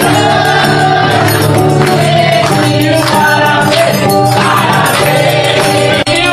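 A group singing in a gospel style over instrumental backing, with a steady beat of hand-clapping or tambourine.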